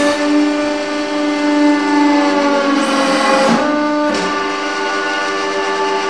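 Hydraulic press running with a steady pitched whine over a hiss. The whine falters about halfway through and picks up again a moment later.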